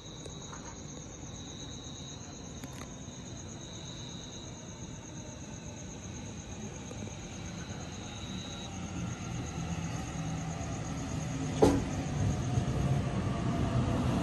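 Sydney Trains double-deck electric train approaching and pulling into the platform, its rumble and motor hum growing steadily louder over the second half, with one sharp clack about three-quarters of the way through. Steady high-pitched insect chirping is heard until the train's noise builds.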